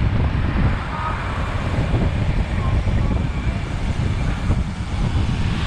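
Wind buffeting a GoPro's microphone on a road bike at speed, a steady low rumble mixed with road and traffic noise.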